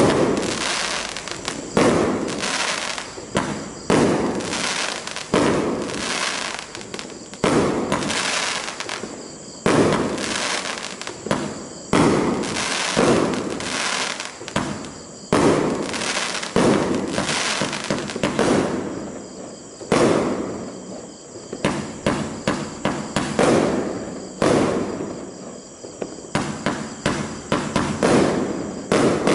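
Blackboxx Rápido 25-shot, 30 mm firework cake firing. It sends off a steady string of shots about one a second, a few coming closer together. Each shot is a sharp bang that fades away over about a second.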